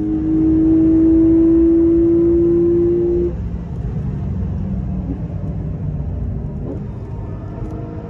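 Porsche GTS engine heard from inside the cabin, pulling hard at steady high revs, its note cutting off about three seconds in as the throttle is released. A lower rumble with road and tyre noise follows as the car goes into a corner.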